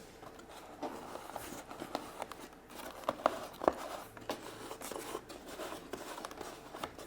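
Faint handling noises: light rustling of a paper instruction sheet with a few small clicks and taps scattered through.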